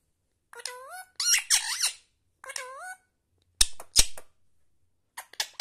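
Indian ringneck parakeet calling in squeaky, gliding notes: a few rising calls over the first couple of seconds and another about halfway, then two sharp knocks, then a quick run of short chirps near the end.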